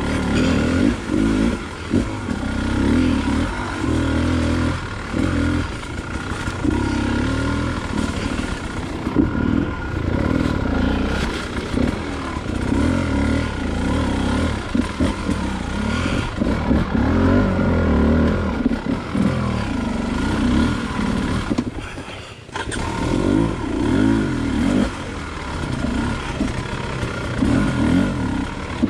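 Enduro dirt bike engine being ridden, revving up and down with the throttle, dipping away briefly about three-quarters of the way through.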